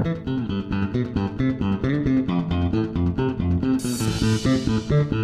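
Background music: plucked guitar over a bass guitar line with a steady beat, with a cymbal-like swell near the end.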